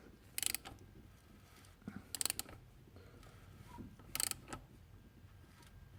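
Short metallic clicking, ratchet-like bursts, about every two seconds, from the timing-chain tensioner of a BMW 320d diesel, which the owner says no longer holds oil pressure. A faint low hum runs underneath.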